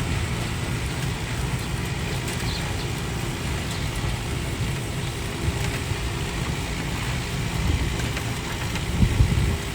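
Steady low rumble and road noise of a small electric rental cart moving slowly, with a louder low thump about nine seconds in.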